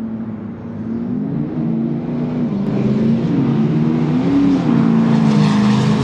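Two turbo-diesel pickups, a Ford Power Stroke V8 and a Dodge Ram with a Cummins inline-six, launching side by side and accelerating hard down a quarter-mile drag strip. The engine note steps in pitch a few times and grows louder as they pull away.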